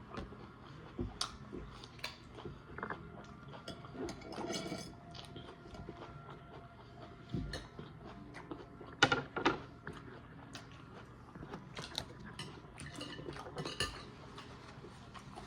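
Scattered clicks and clinks of cutlery and dishes during a meal, with some quieter eating sounds between them; the loudest cluster of clinks comes about nine seconds in.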